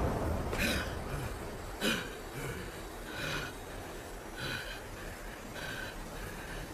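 Heavy, labored breathing from an anime character, short breaths about once a second, as the rumble of an explosion dies away at the start.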